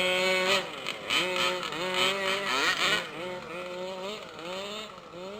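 Small two-stroke engine of a gas-powered RC car revving up and down over and over as it is driven. The engine sound fades away over the last couple of seconds.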